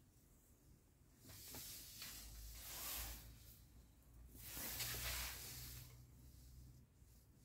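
Glossy magazine pages being turned by hand: two soft paper rustles, the first starting about a second in and the second about four and a half seconds in.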